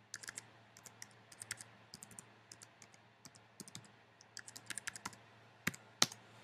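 Typing on a computer keyboard: a run of separate key clicks, entering a password at a sudo prompt, with two sharper, louder key strikes near the end, the second the loudest.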